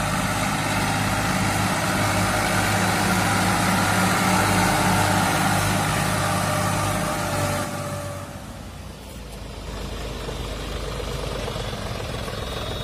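Diesel tractor engine running steadily as it pulls a loaded trailer; about eight seconds in the sound drops to a quieter steady run of a second tractor, a John Deere 5050E, idling.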